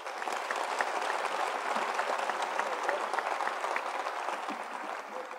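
Audience applauding, a dense patter of many hands clapping that swells up at the start and thins out near the end.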